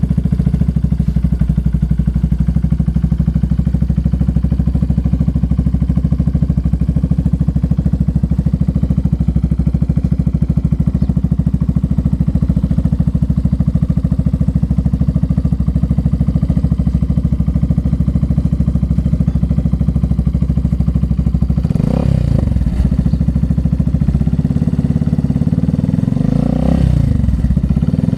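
Yamaha FZS V3's 149 cc single-cylinder engine through an Akrapovic slip-on exhaust with the dB killer removed and the catalytic converter cut out, idling with a steady, lumpy beat. About twenty seconds in it is blipped several times, the exhaust note rising and falling with each rev.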